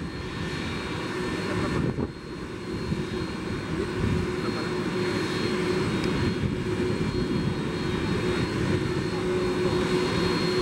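Airbus Beluga ST's two General Electric CF6-80C2 turbofans running steadily on the ground, a constant jet rumble with a held whining tone and no spool-up.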